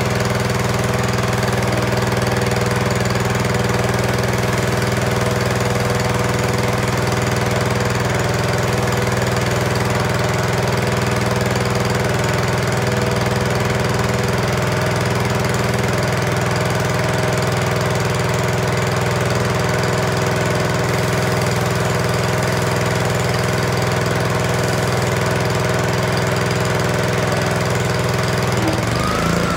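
Honda-engined Craftsman gas pressure washer running steadily under load while its wand sprays, the transplanted pump holding pressure. Near the end the engine's pitch shifts.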